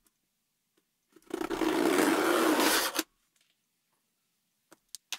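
Packing tape ripped off a cardboard box in one long pull of about two seconds, followed near the end by a few light clicks.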